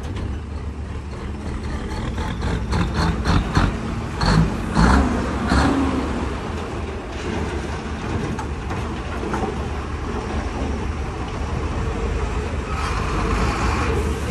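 Heavily loaded Howo dump truck's diesel engine running with a steady low rumble as the truck pulls forward. A run of sharp clicks and knocks comes from about two to six seconds in.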